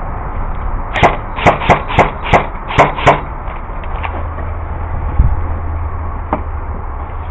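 Airsoft gun firing seven quick semi-automatic shots, about three a second, each a sharp crack. A single dull thud follows a couple of seconds later.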